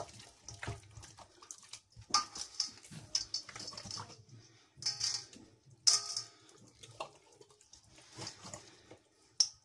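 Hands rubbing lemon juice over raw whole chickens in a stainless steel bowl: irregular wet squelching and slapping of the raw skin, with a few sharper bursts.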